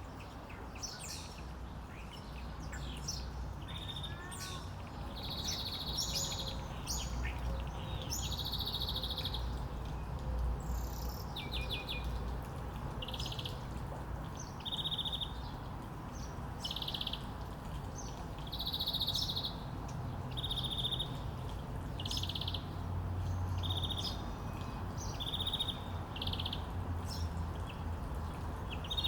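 Songbirds chirping and calling: short high trills repeated every second or two, with scattered sharper chirps above them, over a low steady rumble.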